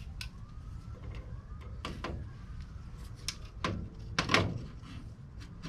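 Irregular knocks and clunks from handling in the workshop, about half a dozen, the loudest a little past four seconds in.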